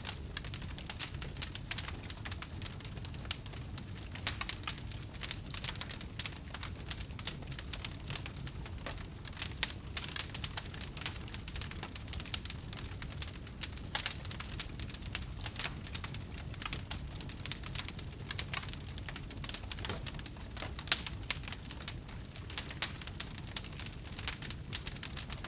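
Wood bonfire burning, with dense irregular crackles, pops and snaps over a steady low rumble.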